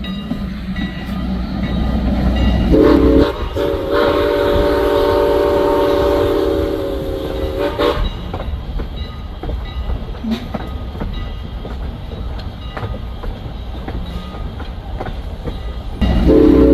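Steam locomotive's chime whistle blowing one long chord of several tones, starting about three seconds in, briefly broken just after it starts, and stopping about five seconds later. After it comes the running noise of the moving train, with scattered wheel clicks, and the whistle sounds again near the end.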